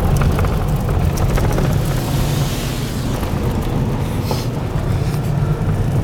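Car driving on a loose gravel road, heard from inside the cabin: a steady low rumble of engine and tyres, with scattered small clicks of stones and a brief swell of hiss near the middle.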